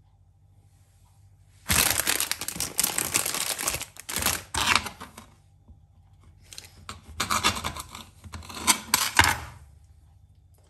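A sweet packet being torn open and rustled, in two long bouts of crackling.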